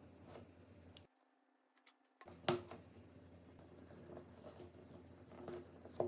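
Scattered light clicks and taps from hands-on phone repair work with small parts and tools, the sharpest about two and a half seconds in and another near the end. About a second in the sound drops out for about a second.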